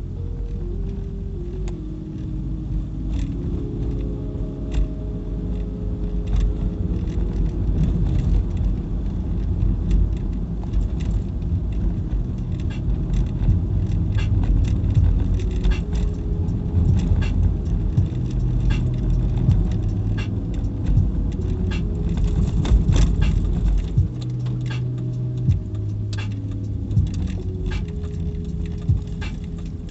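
Road and engine rumble inside a moving car's cabin, with scattered light clicks and rattles. Faint music plays underneath, its low notes stepping from pitch to pitch. The rumble eases about three-quarters of the way through as the car slows.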